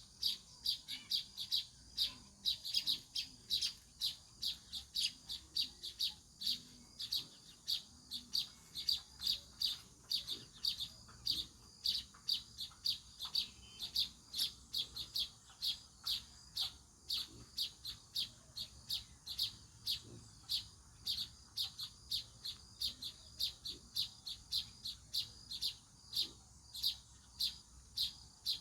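House sparrow chirping over and over in a steady rhythm, about three short, high chirps a second.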